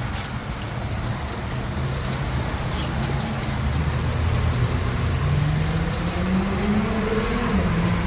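Steady road traffic noise. Over the second half a vehicle engine's note slowly rises in pitch.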